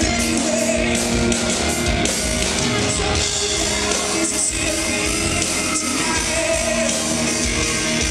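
Live rock band playing, with the lead singer singing over keyboard, electric guitars and drums.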